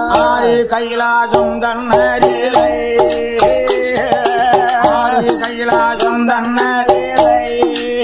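Tamil villu pattu folk ensemble music: a wavering, bending melody played over a steady drone, with evenly spaced percussion strokes keeping the beat.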